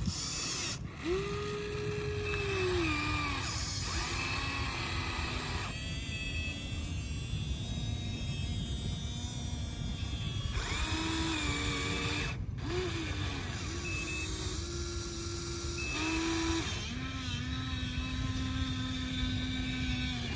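Small electric motors of a Huina radio-controlled excavator whining in short runs, each starting, changing pitch and stopping every few seconds, over a steady gear rattle.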